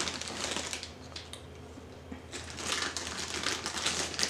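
Crinkling, crunching noise of a snack packet and its crunchy contents being handled, in two bouts: one in the first second, another from about halfway to near the end.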